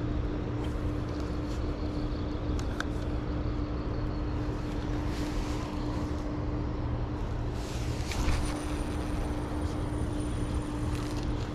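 Steady low mechanical hum and rumble with one constant tone. About eight seconds in there is a brief swish as a spinning rod is cast.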